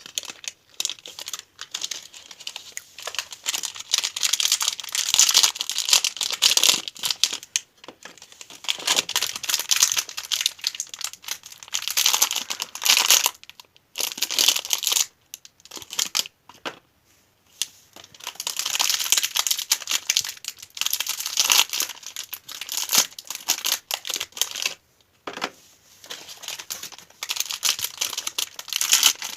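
Sweet wrappers being crinkled and torn open by hand, in bouts of busy crackling separated by short pauses.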